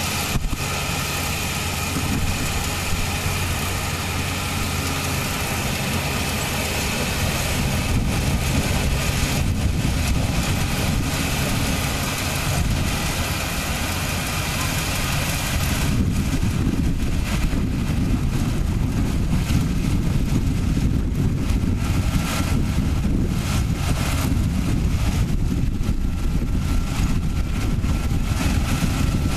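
Rice combine harvester's engine and machinery running steadily as it cuts rice, a little louder from about halfway through.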